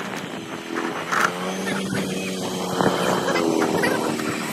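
Honda scooter's small single-cylinder engine running as it is ridden. It gives a steady hum whose pitch rises a little about three seconds in.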